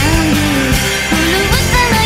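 Rock music with a singing voice and guitar playing loudly over the unboxing.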